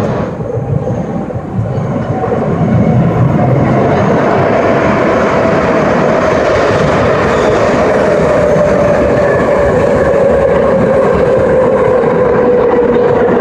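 Madrid Metro train coming out of the tunnel and running into an underground station platform. It grows louder about two seconds in, and a steady motor whine slowly falls in pitch as the train slows, over the rumble of wheels on the track.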